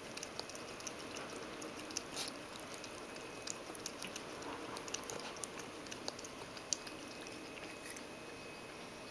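Ragdoll cat lapping water from a stainless steel bowl: quick, irregular wet clicks of the tongue. The clicks stop near the end.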